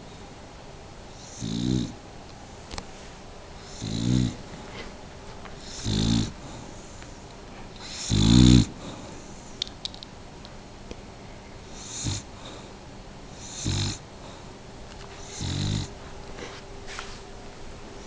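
A pet snoring in its sleep, one snore about every two seconds, each about half a second long. The loudest comes about eight seconds in and is followed by a pause of about three seconds before the snoring picks up again.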